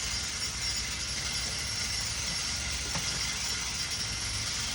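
Steady rumble of construction machinery working in the background, with a faint click about three seconds in.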